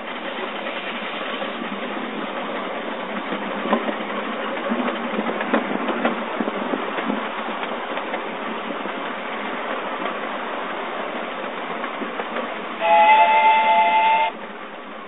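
Miniature live-steam locomotive hauling a ride-on train: steady running noise of the wheels on the small-gauge track, with scattered clicks. Near the end the locomotive's steam whistle blows once, loud and chord-like, for about a second and a half.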